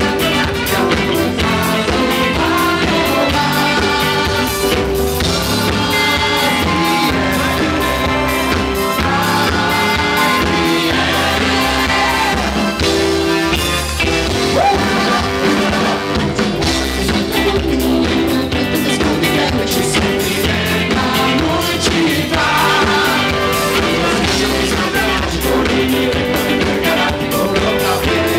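Live band playing with a group of singers singing together into microphones, electric guitar in the mix; the music runs steadily and loud throughout.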